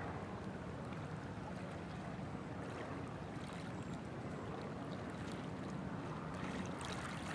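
Steady lakeside ambience: a low, even rush of open-air water and wind noise, with faint light ticks growing a little busier toward the end.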